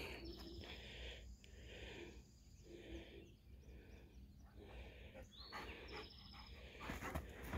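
Puppies panting faintly after rough play: soft, rhythmic breaths about once a second.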